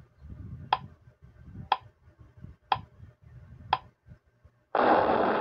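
Countdown timer sound effect: clock-like ticks, one a second, four of them, then a sudden loud burst of noise about 4.7 s in as the countdown runs out.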